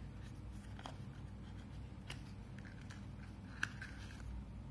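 Small cardboard packaging handled in the hands: a few faint clicks and light rustling, with the sharpest tick about three and a half seconds in, over a low steady hum.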